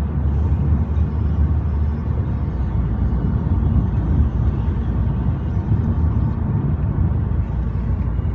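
Passenger train running, heard from inside the carriage: a steady low rumble.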